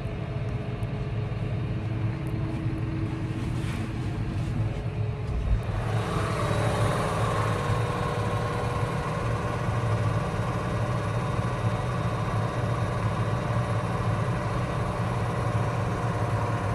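Tractor engine running steadily; about six seconds in it gets a little louder and a higher whine joins the hum.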